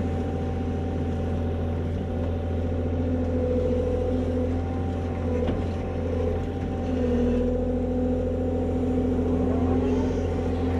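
Excavator's diesel engine running steadily, heard inside the cab, its hum swelling for a few seconds at a time as the digging hydraulics are worked.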